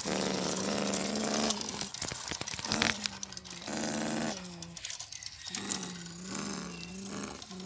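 A person imitating a truck engine with their voice: a low growling hum in stretches of a second or two, with short breaks between, while a toy dump truck is pushed over dirt.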